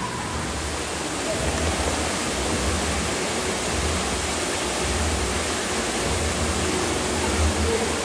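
Steady rushing noise, like flowing water, with a low pulsing rumble beneath it.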